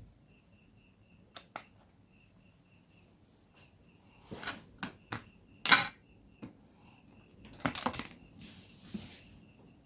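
Small sharp clicks and short scraping noises of hand tools working on a smartphone's housing during disassembly, the loudest click a little before six seconds in and a cluster of scrapes near eight seconds. A faint high chirping repeats in short pulses underneath.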